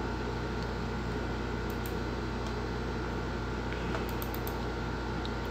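Steady low background hum with a few faint clicks of a computer mouse and keyboard.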